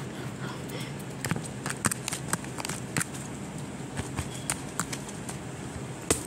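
Close handling noise: irregular taps and clicks as a hand and a green stick knock and rub against the recording device, over a steady low hum.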